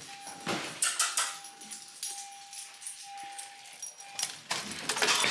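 Small dog whining, with clicks and rustling as she moves about the car.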